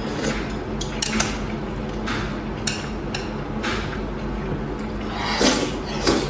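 A person eating close to the microphone: a series of short wet slurps and smacks, with utensils clinking against a dish.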